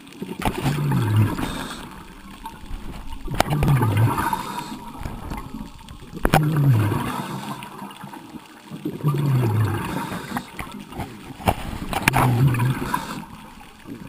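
A diver's breathing underwater: five bursts of exhaled bubbles gurgling from the regulator, about every three seconds, each starting with a sharp click.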